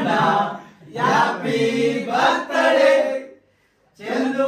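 Men's voices chanting together in short sung phrases, with a brief break about three and a half seconds in.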